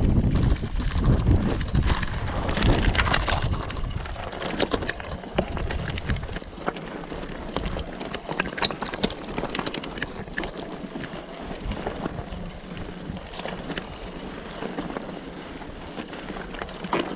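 Mountain bike descending a rocky trail: tyres crunching over gravel and stones with many short rattling clicks. Wind rumbles on the microphone and eases off about six seconds in.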